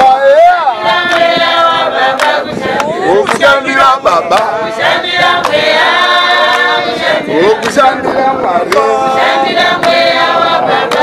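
A group of women singing together as a choir, unaccompanied, with hand claps throughout.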